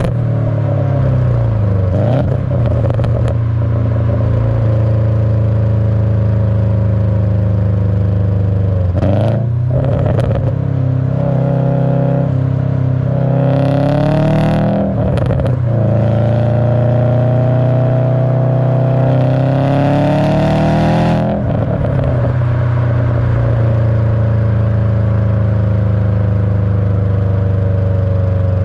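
2007 Subaru WRX STI's turbocharged flat-four running through a catless downpipe and HKS cat-back exhaust, pulling under acceleration. Its note climbs twice, with short breaks at the gear changes, then falls away steadily over the last several seconds as the car coasts down.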